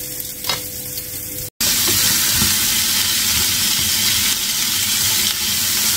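Chopped cabbage with bacon and garlic sizzling in a frying pan. The sizzle gets louder after a sudden cut about a second and a half in, and a single click comes just before the cut.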